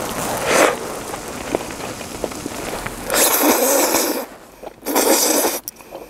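A person eating hot fish cake off a skewer, with several breathy bursts of about a second each, typical of blowing on and slurping steaming food, and faint ticks between them.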